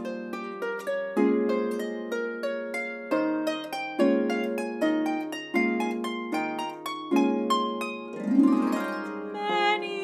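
Solo lever harp, plucked by hand: a slow melody over chords, each note ringing on under the next. About eight seconds in there is a brief louder, noisier swell.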